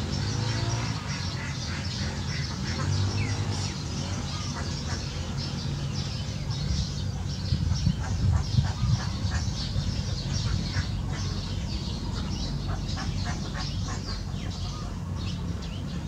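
A duck quacks twice in the first few seconds. Sparrows chirp busily throughout, over a steady low hum.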